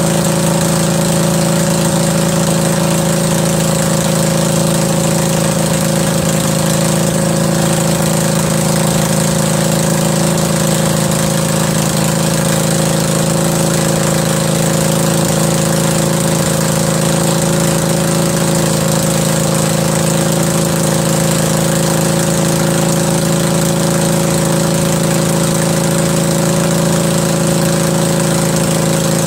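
Kohler Command 20.5 hp air-cooled V-twin engine on a Craftsman lawn tractor, running at a steady, unchanging speed with its air cleaner off.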